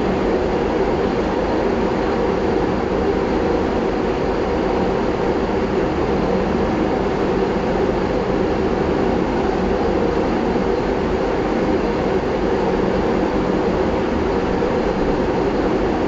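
A steady, even rumbling noise with no breaks or separate strokes.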